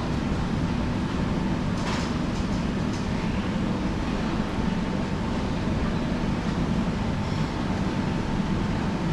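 Steady low mechanical rumble, with a few light clicks about two and three seconds in.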